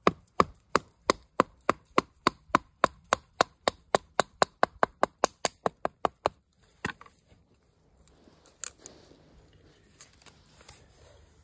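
A wooden branch used as a baton knocking on the spine of a fixed-blade knife (Halfbreed Blades ERK-01), driving it down through a wet pine stake to split it: about two dozen sharp knocks that quicken from about three to five a second and stop about six seconds in. One more knock follows, then faint scraping as the knife shaves the split wood.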